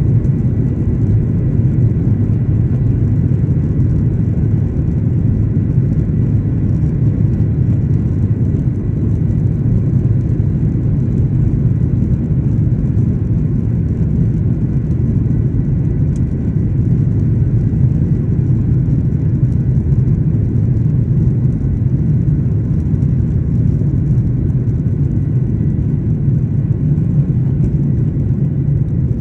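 Steady low rumble of a Boeing 737-800 airliner's engines and airframe, holding level throughout, with a faint steady high whine above it.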